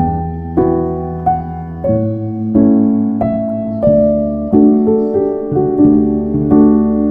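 Background music: a slow piano piece, its notes struck about every half second to second and left to ring out.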